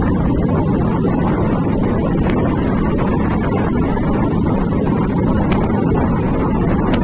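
Steady, loud wind rumble on the microphone of a camera moving along a road, mixed with vehicle running noise.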